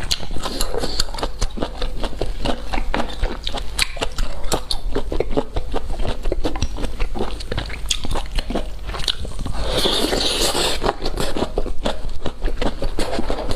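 A person eating seafood close to the microphone: rapid wet smacks, clicks and crunches of biting and chewing, with a longer noisy stretch about ten seconds in.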